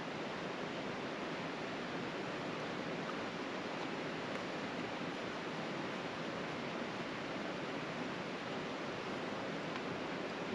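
A steady, even rushing hiss that does not change, with no distinct knocks, scrapes or other events in it.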